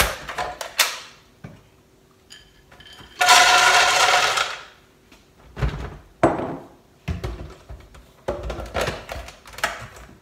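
A bowlful of roasted peanuts poured into a Ninja blender jug, a loud rattling rush lasting about a second and a half, followed by a series of knocks and clicks as the jug and lid are handled.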